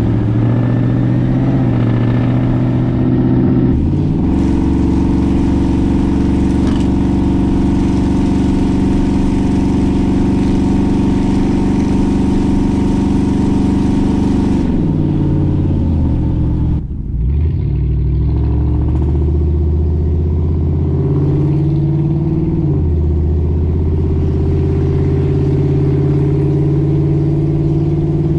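Ford F-150's 5.4-litre Triton V8 through straight-piped true dual exhaust while the truck drives: the engine note holds steady, falls in pitch about fifteen seconds in, dips briefly, then climbs again.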